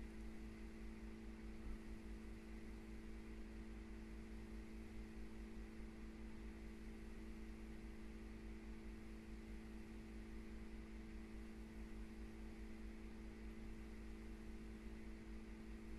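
Faint, steady hum made of a few fixed tones, the constant background drone of the room; no separate clicks or knocks stand out.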